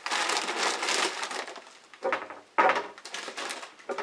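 Plastic rice bag crinkling as it is twisted and folded shut, then two sharp knocks about two seconds in, the second the loudest.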